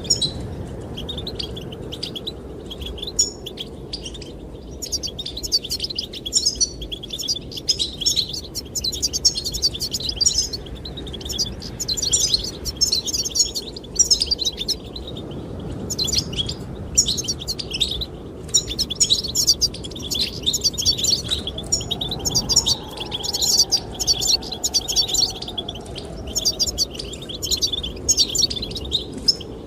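Goldfinches singing: rapid high twittering runs of chirps and trills, a second or two each with short gaps, over a steady low rumble of wind.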